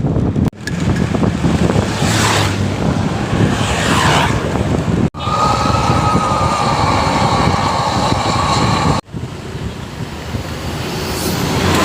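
Buses and other traffic speeding past on a highway, with wind buffeting the microphone and two abrupt cuts. In the middle stretch a steady high-pitched tone sounds over the passing traffic.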